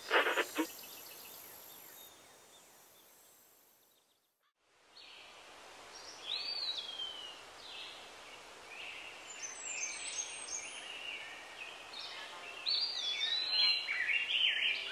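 Birds singing over a steady background hiss: short whistled calls that slide downward in pitch, beginning about a third of the way in and growing busier toward the end. Before that, a few quick pulses at the very start fade out to near silence.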